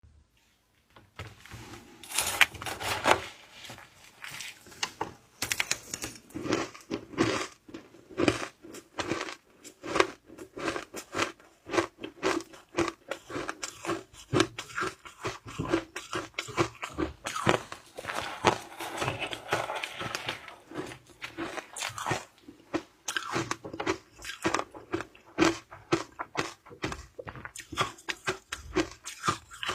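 Shaved ice being bitten and chewed close to the microphone: a steady run of irregular, crisp crunches, several a second, starting about a second in.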